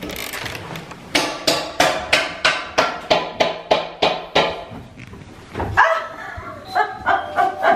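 A dog barking rapidly and over and over, about three barks a second, then a few more irregular barks towards the end.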